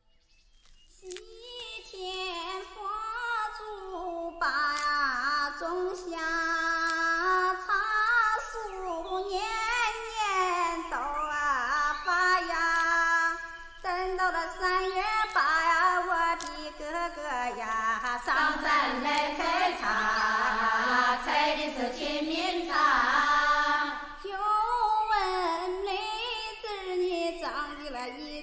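A high voice singing a slow melody that slides between long-held notes, starting about a second in after a moment of silence.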